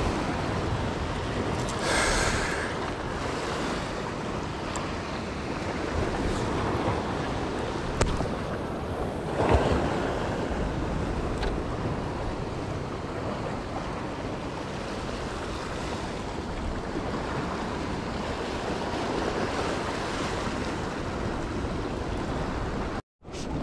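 Waves washing and breaking against a rock shore below, with wind buffeting the microphone: a steady, even wash of surf with a few brief louder surges and knocks. The sound drops out for a moment near the end.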